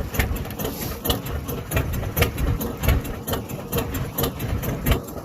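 Small fishing boat's engine running steadily, a low rumble with an even rapid ticking of about five beats a second.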